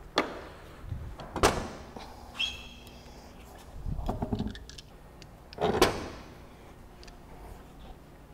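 Rear wheel being taken off a Can-Am Maverick X3 side-by-side: about four separate knocks and clunks of metal and tyre, with a brief high metallic ring in the middle.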